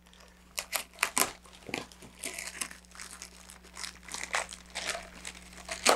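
Clear plastic packaging bag crinkling and crackling in the hands as it is opened and the kit's parts are pulled out, a run of irregular crackles with one sharper crackle near the end.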